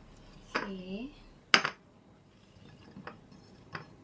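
Kitchenware handled on a tiled counter: one sharp clack about a second and a half in, like a glass plate being set down, then a few light clicks as cut eggplant pieces are pushed off a wooden chopping board onto the plate.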